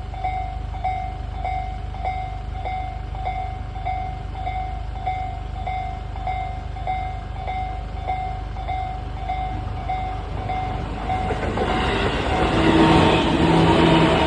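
Japanese level-crossing warning bell ringing in even strikes, just under two a second. From about eleven seconds in a train approaches and passes, its running noise growing loud and covering the bell.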